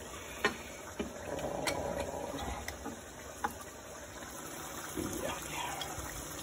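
A green plastic hand-held lemon squeezer being loaded with a lime piece and pressed, giving a few light clicks, with a faint trickle of juice into the pan of curry.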